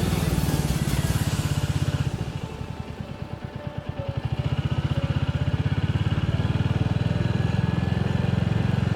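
Motorcycle engine running under way. It eases off about two seconds in and picks up again about two seconds later, then runs steadily.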